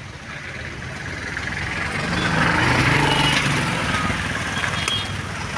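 A motor vehicle's engine passing by on the street, swelling in loudness about two seconds in and then slowly fading.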